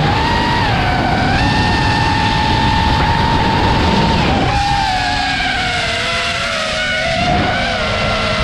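FPV quadcopter's brushless motors whining under throttle, the pitch holding and then shifting up and down as the throttle changes, over a rush of wind noise.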